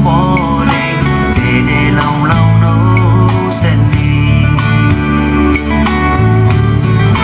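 A song played through the Ceflar M1110 soundbar and subwoofer in a sound test: a singing voice and guitar over a heavy, sustained bass line.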